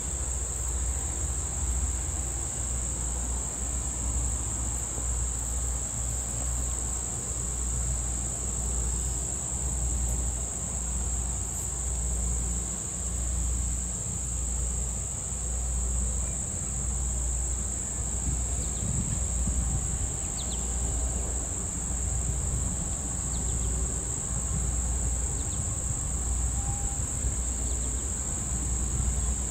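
Summer insects in chorus, a steady high-pitched trill that does not let up, over a low uneven rumble.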